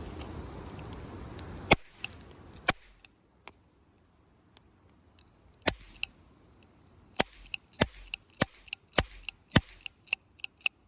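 A steady hiss that cuts off with a loud snap, followed by a run of sharp, separate clicks or snaps at irregular spacing that come faster near the end.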